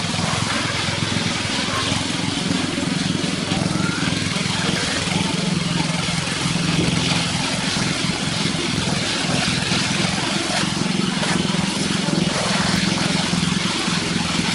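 Heavy construction machinery engine running steadily, its drone swelling and easing every second or two, over a hiss of work noise.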